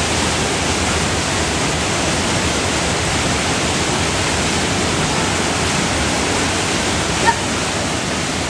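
Rushing water of a mountain stream or falls: a steady, even roar. A brief sharp click about seven seconds in.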